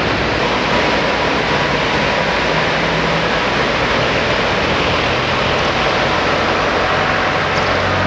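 Steady rush of river water spilling over a barrage weir, with a faint low hum underneath.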